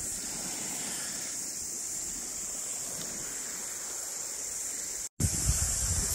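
Gentle waves lapping on the sand with wind on the microphone, a steady high hiss over it. It cuts out for a moment about five seconds in, then comes back with louder low wind buffeting.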